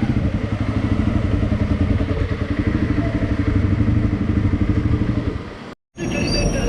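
Honda CRF300L's single-cylinder engine running with a fast, even pulsing. It fades and breaks off about five and a half seconds in, and after a brief gap a different background with a few high squeaks takes over.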